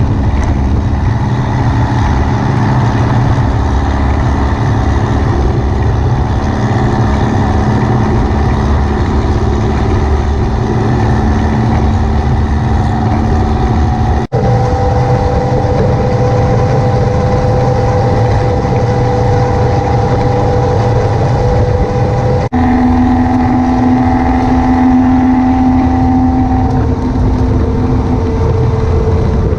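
VW beach buggy driving along, its engine running at a steady note under loud road and wind noise. The pitch of the engine note holds for long stretches and changes abruptly twice.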